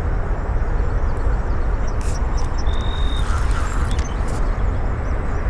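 Steady low rumbling noise with a few faint clicks and one brief high tone about three seconds in.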